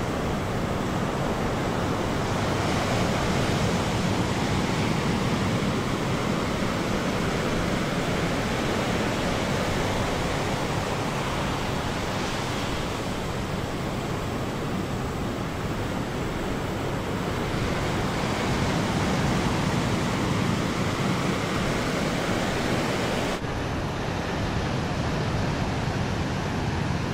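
Ocean surf: waves breaking and washing in a steady rush of noise that slowly swells and eases.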